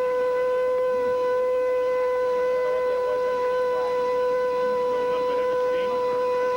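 Old Kenmore vacuum cleaner's motor running flat out with a loud, steady, high whine that holds one pitch, starting the moment it is plugged in.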